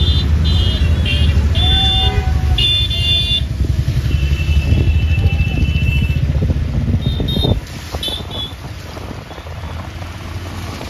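Road traffic heard from a moving vehicle: a heavy low engine and road rumble, with a run of short high-pitched toots in the first few seconds and one longer toot about four seconds in. About seven and a half seconds in the rumble drops away suddenly, leaving fainter wind and traffic noise.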